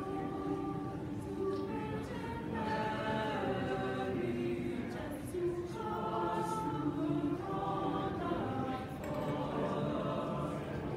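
Mixed choir of men's and women's voices singing, several parts holding sustained notes together and moving to new chords every second or so.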